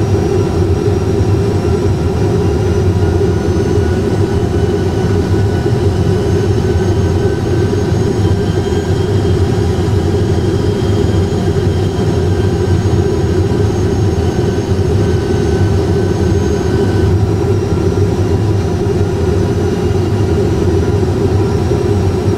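Cockpit sound of an Airbus A320 full flight simulator: a steady rumble and hiss of simulated jet engines and airflow, with faint whining tones that drift slowly up and down in pitch.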